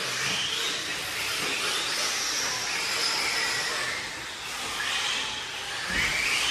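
Several 1/8-scale electric RC buggies racing: their motors make high whines that rise and fall in pitch as the cars speed up and slow down, one rising sharply near the end, over a steady hiss.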